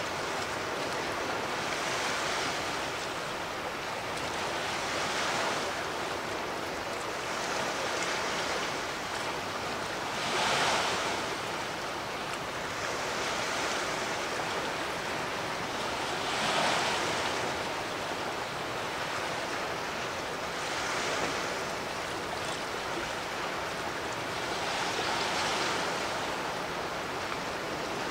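Sea waves washing in, swelling and easing every few seconds, with two larger surges about ten and sixteen seconds in.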